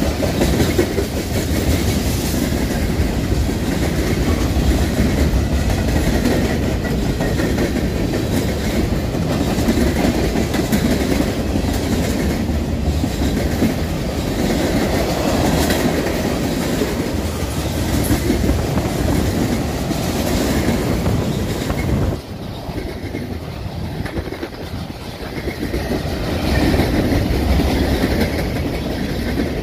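Freight train cars rolling past close by: tank cars and boxcars rumbling along, their steel wheels clacking over the rail joints. The sound dips for a few seconds about two-thirds of the way through, then comes back up.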